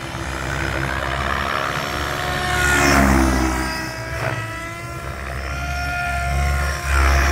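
Tron 7.0 RC helicopter flying 3D aerobatics: a rotor and motor whine that keeps changing pitch with the manoeuvres, and the loudest pass comes about three seconds in. A steady low rumble runs underneath.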